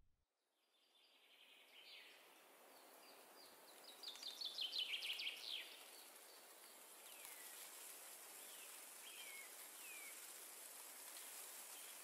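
Faint woodland ambience. A songbird sings a quick run of downward-slurred notes that speed up and grow louder, then gives a few separate downslurred calls, over a steady high hiss of insects.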